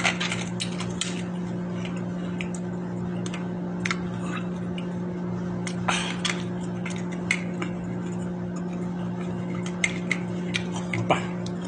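Metal fork clicking and scraping against a ceramic bowl, with mouth and chewing noises from eating sliced mango dipped in vinegar and soy sauce, as scattered short sounds over a steady low hum.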